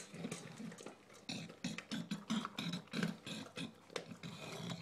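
English bulldog eating dry kibble from a metal bowl: loud, wheezy grunting breaths about three a second, with crunching and kibble clicking against the bowl.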